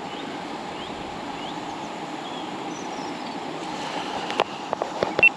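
Steady rushing outdoor noise of wind and flowing river water, with a few sharp clicks near the end.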